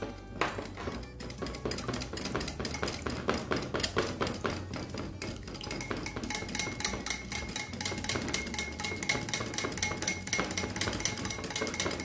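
Stainless-steel balloon whisk beating a thin flour-and-water mixture in a ceramic bowl, its wires clicking and scraping rapidly and steadily against the bowl.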